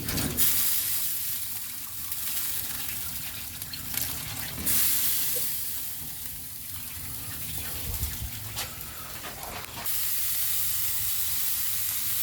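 Water being poured into the water pan of a Masterbuilt gas smoker, filling it in a few separate pours.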